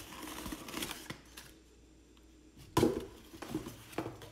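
Unboxing handling: plastic packaging rustling and cardboard being moved around inside a tool bag, with one sharp knock a little under three seconds in and a few lighter taps after it.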